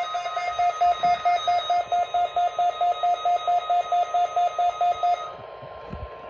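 Weather radio receiver's alert alarm beeping rapidly, about five beeps a second, over a faint steady warning tone from the NOAA Weather Radio broadcast. The beeps stop about five seconds in while the steady tone carries on.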